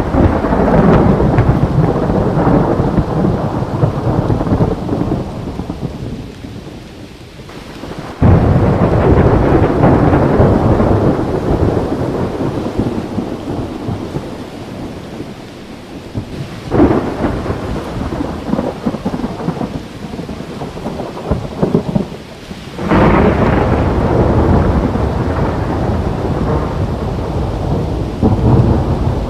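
Thunderstorm: rain falling steadily while thunder rolls, with loud sudden claps about a quarter, a half and three quarters of the way through, each rumbling on and dying away over several seconds.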